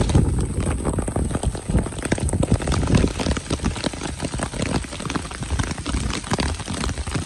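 Heavy rain falling, with countless drops striking close to the microphone as a dense, irregular run of ticks over a deep rumble.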